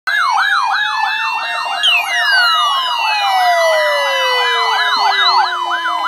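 Several weather alert radios sounding their siren-like warning alarms together for the NOAA Weather Radio weekly test. Several tones overlap: a fast warble repeating three or four times a second, steady tones, and a long falling glide that starts about two seconds in.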